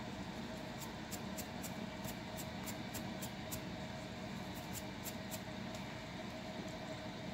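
Scratching on a dry, flaky scalp through natural hair: quick, crisp scratching strokes about four a second, in a run from about a second in to the middle, then a few more after a short pause, over a steady background hiss and hum.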